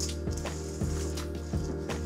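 Background music with a steady beat of about two drum hits a second over held bass notes.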